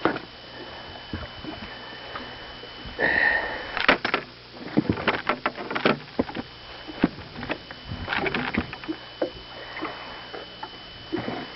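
Irregular knocks, clatters and rustles of a fish and gear being handled in a fishing boat, thickest in the middle, over a faint steady high tone that stops near the end.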